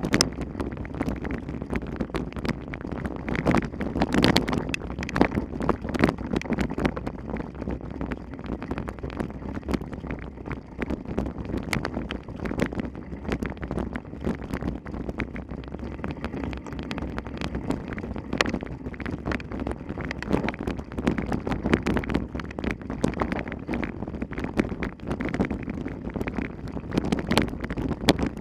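Wind buffeting the microphone, with a constant stream of small knocks and rattles throughout.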